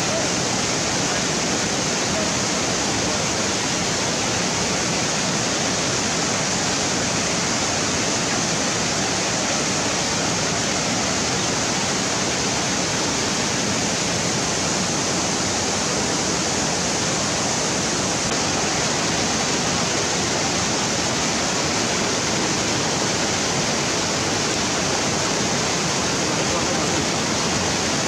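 Steady rushing of running water, an even unbroken noise with no changes.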